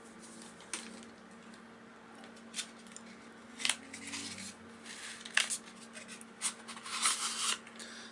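A steel knife blank being slid out of a cardboard sleeve and plastic wrapping by hand: short, scattered rustles and scrapes of cardboard and plastic, with a busier stretch of rustling near the end.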